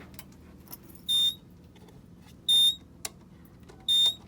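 Fire alarm control panel's buzzer sounding three short, high-pitched beeps, evenly spaced about a second and a half apart.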